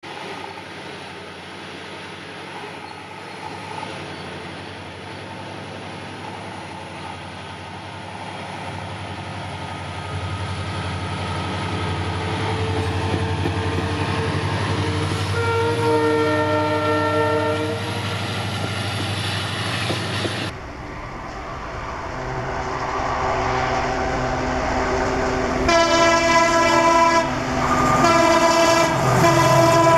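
WDP4B diesel locomotive approaching and passing with its engine running and wheels on the rails, the noise building as it nears, and sounding its horn in a long blast. About two-thirds of the way through the sound cuts abruptly to another diesel locomotive, which sounds its horn in two loud blasts near the end.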